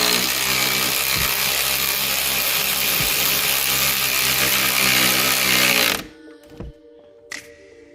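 Cordless electric power tool running steadily as it drives in a seat-belt mounting bolt, cutting off about six seconds in.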